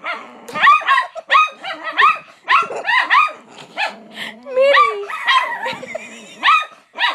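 Dog barking rapidly and repeatedly, about two barks a second, at a person teasing it: protective barking.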